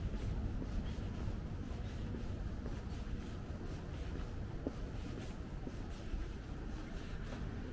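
Footsteps on pavement, a faint repeated scuffing, over a steady low hum of city background noise.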